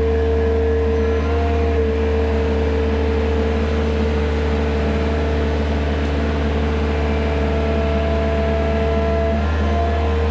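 Farm loader engine running steadily with a held whine over a deep hum, the whine shifting slightly near the end, as the machine works on the bale stack.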